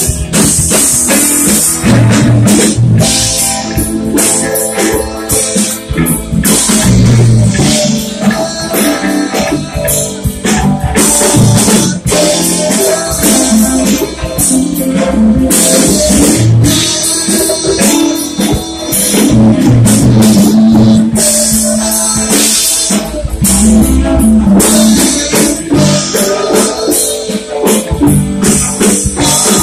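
Loud live rock band playing: electric guitars and bass guitar over a drum kit.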